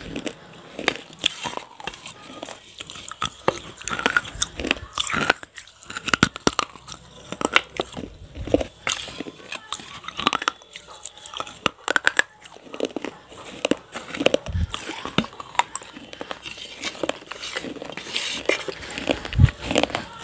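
Close-miked biting and chewing of roasted clay pot pieces coated in cream: sharp, irregular crunches.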